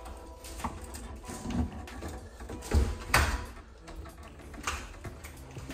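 Knocks and scrapes of a disconnect switch and screwdriver being handled against a metal electrical box, with the loudest pair of knocks about three seconds in.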